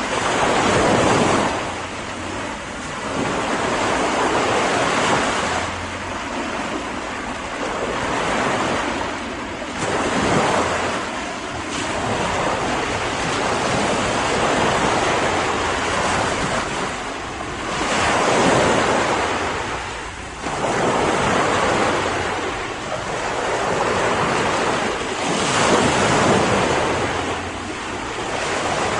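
Ocean waves breaking and washing up on a beach, the surf swelling into a louder rush every few seconds over a continuous hiss of foam and wind.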